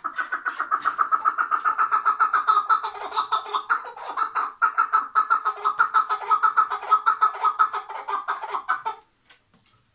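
Chukar partridge calling: a fast, even run of short chuck notes, several a second, that stops abruptly about nine seconds in.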